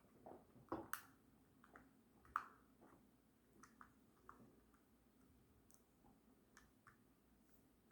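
Near silence with a few faint, scattered clicks and taps of small-object handling, the sharpest about two and a half seconds in.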